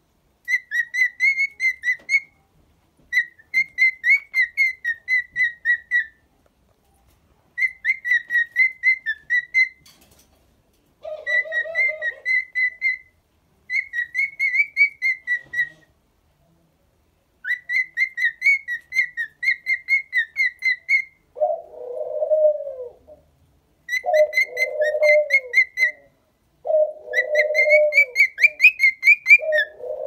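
Cockatiel whistling in repeated phrases of quick, pulsed high notes, each phrase lasting two or three seconds with short pauses between. A lower cooing sound comes in briefly about a third of the way through, and then with most phrases in the last third.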